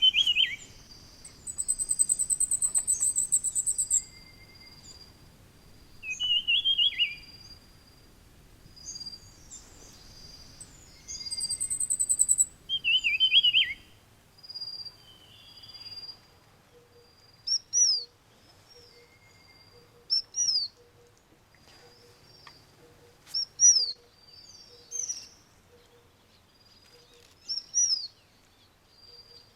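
Wild mountain birds calling and singing. In the first half, warbling phrases alternate with a high, thin trill, over a repeated steady whistled note. After a change of scene about halfway through, short sharp notes that fall in pitch come every couple of seconds.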